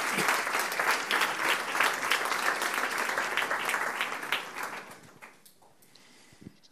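Audience applauding in a hall, a dense patter of many hands clapping that fades out about five seconds in.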